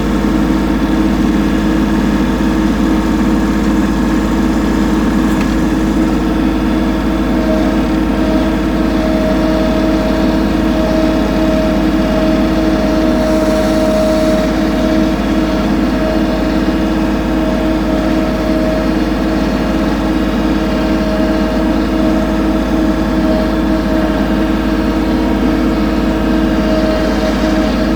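An engine running steadily at idle, an even hum with an unchanging pitch.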